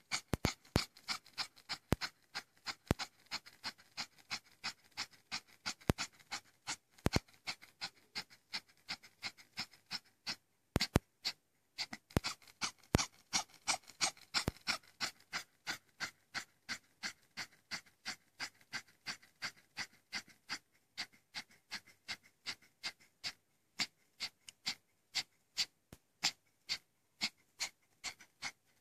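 Yorkshire terrier with an enlarged heart panting rapidly and shallowly, about three to four quick breaths a second, with a brief pause a little before halfway.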